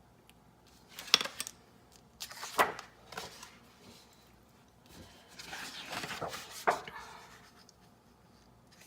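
Handling noise as cards or papers are shifted and set down: a few short sliding rubs and light knocks on a surface, about a second in, twice between two and three seconds, and a longer scuffle around six seconds.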